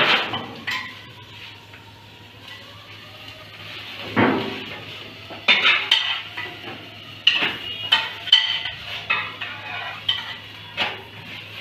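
Metal tongs clinking and scraping against a stainless steel frying pan as sautéed vegetables are lifted out and plated, a scatter of sharp metal-on-metal clinks with a heavier knock about four seconds in, over a steady low hum.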